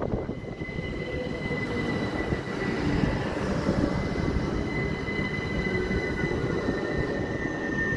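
Southern electric multiple-unit train pulling out of the platform and running past: a steady rumble of wheels on the rails, with a steady high-pitched whine throughout.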